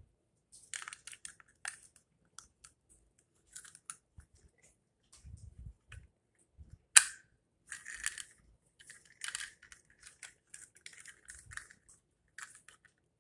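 Hard plastic toy car and action figure being handled and fitted together: scattered small clicks, scrapes and rustles, with one sharp plastic snap about seven seconds in.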